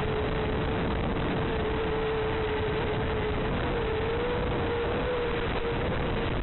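Steady hiss with one constant mid-pitched hum on a racing quadcopter's FPV video-feed audio. The hum wavers slightly about four to five seconds in.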